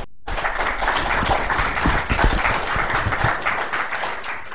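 Audience applauding, many hands clapping at once, starting a moment in.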